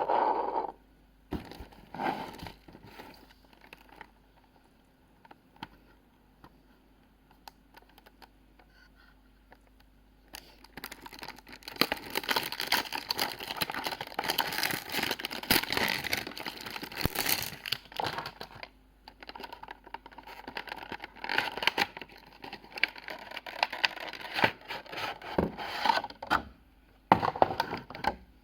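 Packaging being handled and unwrapped, crinkling and rustling. A few short bursts come first, then continuous rustling from about ten seconds in until near the end.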